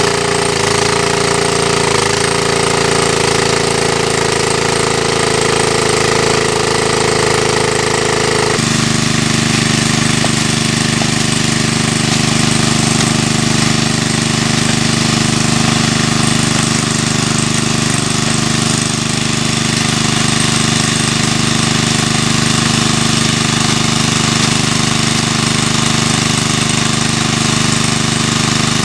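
Small petrol-engine water pump running steadily at work, with the rattle of its engine and the splash of the water jet from its outlet. Its tone changes abruptly about nine seconds in.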